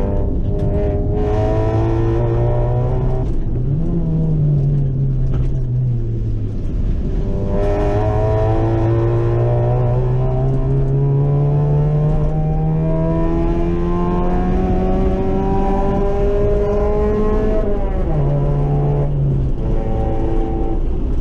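Honda Civic EK hatchback's D16 four-cylinder engine pulling hard on a race track, its pitch climbing through the revs. The revs fall away from about four to six seconds in, then rise again in one long pull from about eight to seventeen seconds. They drop near the end and hold steady, over a constant rush of road and wind noise.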